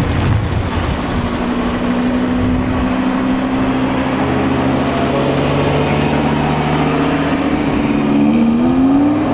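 Audi R8 V10 engine running at a steady note for several seconds, then rising in pitch as the car revs and accelerates near the end.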